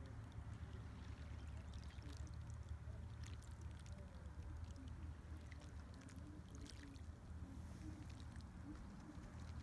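Faint trickling water with many small scattered crackles over a steady low rumble.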